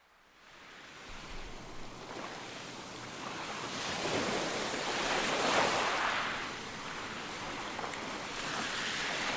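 Sea waves surging and washing in, fading up from silence; the surf swells to its loudest a little past the middle, then eases back.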